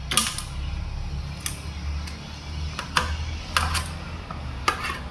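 Small sharp clicks and taps from a screwdriver and wire being worked at the contactor terminals of a DOL motor starter, a handful spread over a few seconds, over a low steady hum.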